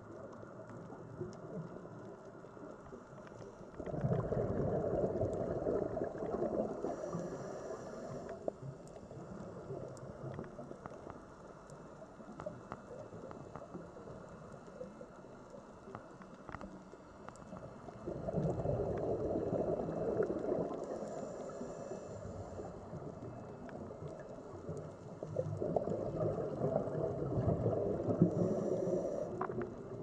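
Scuba diver's exhaled bubbles gurgling and rushing out of the regulator underwater, in three long bursts starting about 4, 18 and 26 seconds in, over a steady low underwater hiss.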